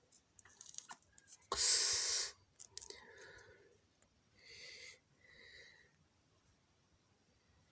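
A short, loud breath or sigh into a close microphone about a second and a half in, followed by faint mumbled voice sounds and a few soft clicks.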